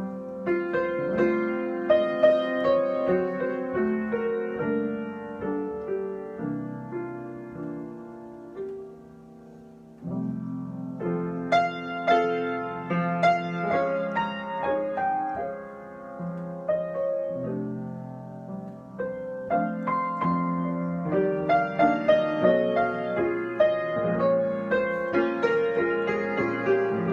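Solo piano improvisation, chords and melody in flowing phrases. About a third of the way in it thins to a soft, quiet passage, then picks up again fuller and busier.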